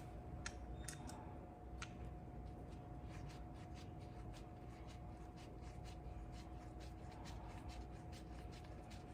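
Light, quick metallic clicking, several clicks a second, from small tools and bolts being handled during scooter brake-pad work, over a faint steady hum.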